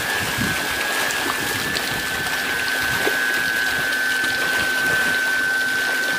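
Water rushing and churning in a fish-farm channel, with a dense crowd of hybrid magur catfish splashing at the surface, over a steady high-pitched whine.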